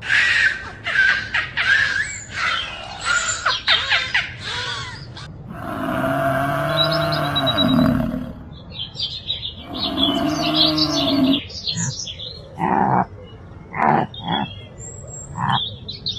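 Animal calls: a quick run of bird chirps, then two long, low calls that rise and fall in pitch, each about two seconds, then a string of short calls.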